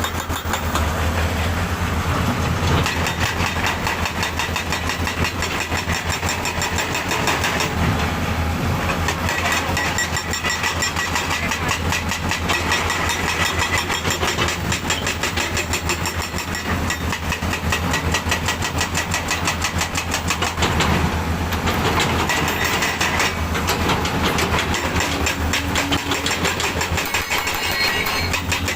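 Heavy diesel engine of an excavator or dump truck running steadily, its firing pulses in a rapid even rhythm.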